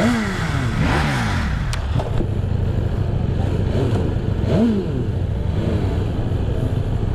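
BMW S1000RR's inline-four engine under way, its revs swelling and dropping several times with the throttle and gear changes. A single sharp click comes just under two seconds in.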